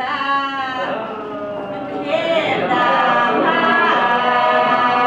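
Epirote polyphonic song sung unaccompanied by a mixed group of men and women. A single voice opens alone, then about two seconds in the rest of the group comes in, holding a steady drone beneath the leading line.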